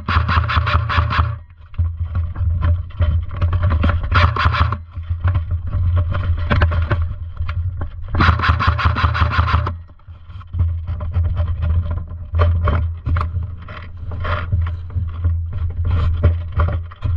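Airsoft guns firing full-auto in rapid bursts: one long burst at the start and another about eight seconds in, with scattered shots between them and after. A steady low rumble runs underneath.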